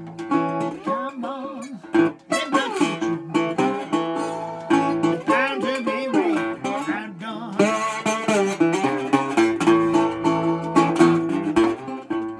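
1929 National Triolian resonator guitar played slide style with a metal slide, fingerpicked notes gliding and bending between pitches in a slow blues.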